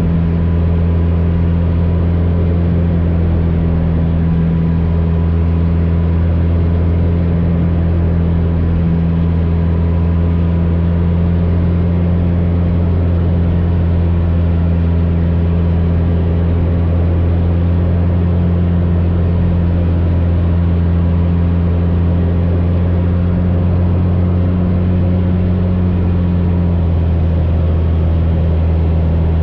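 AcroSport 2 biplane's piston engine and propeller running steadily in flight, with a slight change in tone about 27 seconds in.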